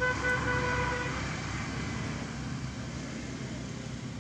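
A vehicle horn sounds at the start, a short toot followed by a held note of about a second, over a steady low rumble of road traffic.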